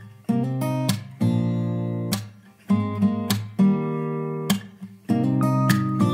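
Background music: acoustic guitar strummed in chords, with short pauses between phrases.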